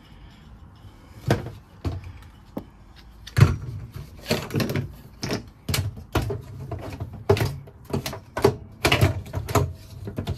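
Household items being handled and set down on hard surfaces: a run of irregular knocks and clatters that starts about a second in and grows busier after about three seconds.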